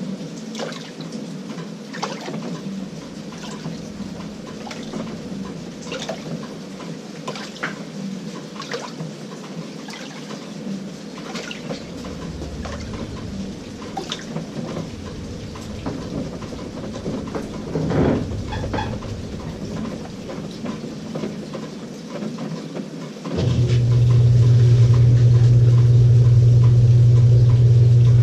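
LG 18 kg top-load washing machine: water trickling and splashing in the tub, then about 23 seconds in a motor starts with a loud, steady low hum.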